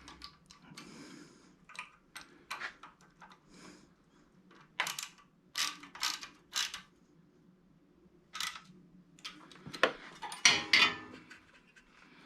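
Irregular clicks and short clatters of a ratchet and metal parts being handled while an ignition coil is mounted on a Kohler small engine, with a few louder clacks in the middle and near the end.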